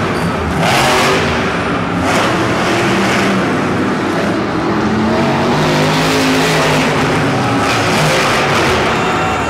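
Monster trucks El Toro Loco and Madusa racing, their supercharged V8 engines revving hard, the pitch rising and falling as they accelerate and let off.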